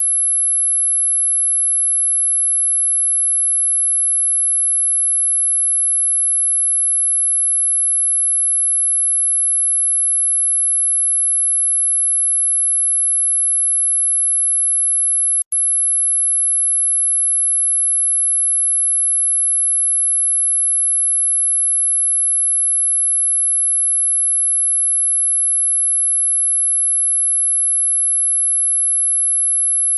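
Dog whistle sound effect: a single steady high-pitched pure tone at about 11,200 Hz, held at a constant level. About halfway through it cuts out for an instant with a faint click, then carries on unchanged.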